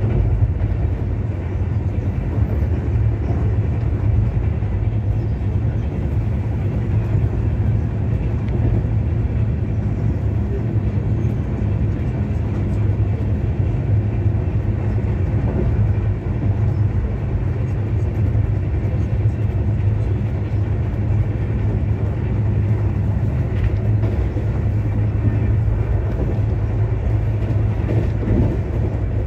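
Steady running noise of a moving Indian Railways passenger train heard from inside the coach: a continuous low rumble of wheels on the rails.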